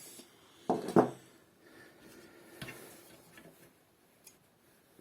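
Handling noise from a PC power supply being taken apart: two close knocks about a second in, then a few light ticks and clicks from the parts and screws being handled.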